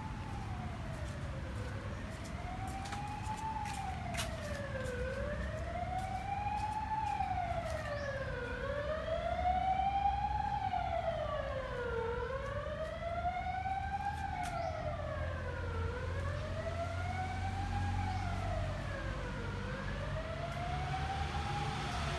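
A siren wailing, its pitch rising and falling in slow, even sweeps about every three and a half seconds, over a low rumble of engine or traffic noise.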